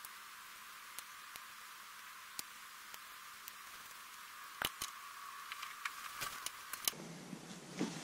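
Faint, scattered metallic clicks and taps as brake pads and a pad pin are fitted into a dirt bike's rear disc brake caliper, over a steady hiss. The clicks are sparse at first and come more often in the second half, with two sharper ones about halfway through.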